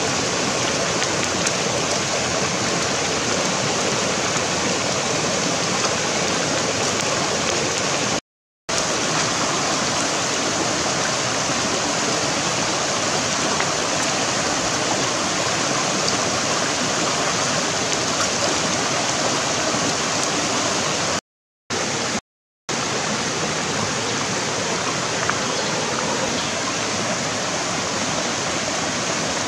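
Shallow river rushing over rocks, a steady, even noise of running water. It cuts out to silence briefly three times.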